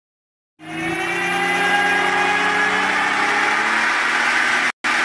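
BMW V12 engine of a homebuilt McLaren F1 replica running on a chassis dynamometer, holding a fairly steady engine speed. It starts abruptly about half a second in and drops out for a split second near the end.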